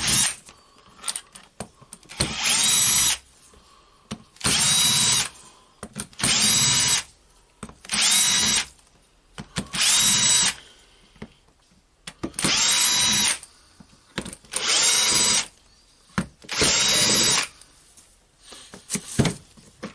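Cordless power screwdriver run in short bursts of about a second, eight times, each spinning up quickly to a steady whine: backing out the housing screws of an impact wrench, one screw per burst.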